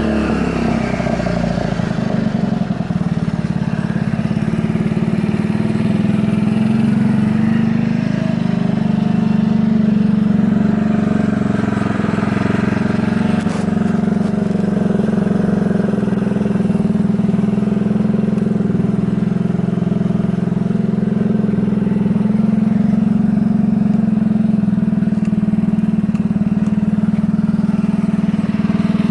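Yamaha Majesty 250 scooter's single-cylinder four-stroke engine dropping back from a throttle blip in the first second, then idling steadily, with no abnormal noises.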